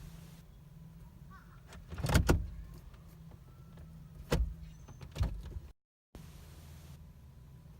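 Steady low hum inside a Jeep's cabin, broken by a few sharp clunks: a double knock about two seconds in and two single ones later. The sound cuts out for a moment near the end.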